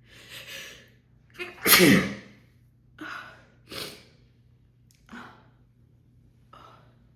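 A woman sneezing hard in an uncontrollable sneezing fit. A breathy in-breath comes first, then one harsh, loud sneeze about two seconds in with the voice sliding down in pitch. Several shorter breathy bursts follow.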